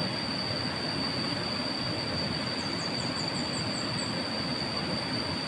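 Steady rush of a flowing river with a continuous high insect drone over it. Near the middle a bird gives a quick run of about eight high chirps.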